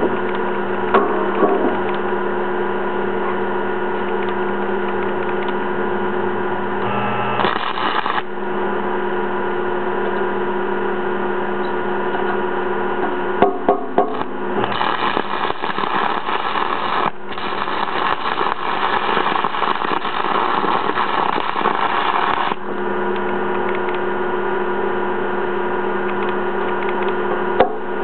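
Old transformer 'cracker box' DC stick welder humming steadily, with the crackling hiss of the arc as an aluminum welding rod burns into aluminum diamond plate. The arc is struck briefly about a third of the way in, then runs for about eight seconds in the second half.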